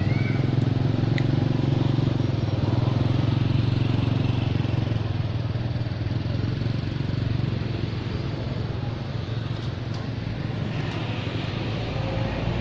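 A motor vehicle engine running steadily, a low hum that eases slightly in the second half.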